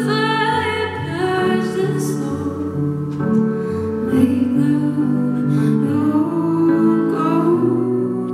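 A woman's voice singing a slow ballad live over sustained piano chords; the voice sings mostly in the first couple of seconds and the piano carries on beneath.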